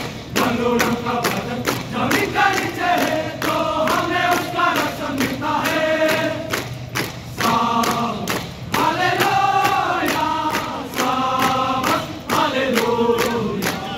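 A large group of soldiers singing and chanting a marching song in unison, with a steady beat about three times a second.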